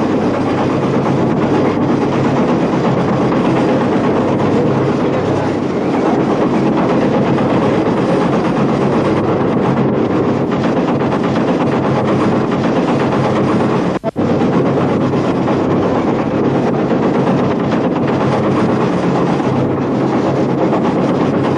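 Factory processing machinery running, a loud steady mechanical din with a low hum; it drops out for an instant about fourteen seconds in.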